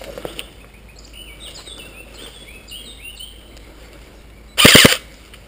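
Birds chirping, then about four and a half seconds in a short, very loud burst of several rapid shots from a G&G CM16 Raider DST airsoft electric rifle fired right at the microphone.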